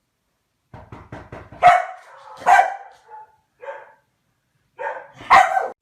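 A dog barking several times in short, separate barks with pauses between them, after a few quick clicks about a second in.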